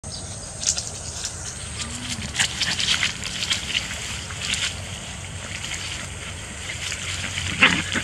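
Short high chirps and ticks scattered over a steady insect hiss: scaly-breasted munias calling among rice stalks. A louder sound sweeps down in pitch near the end.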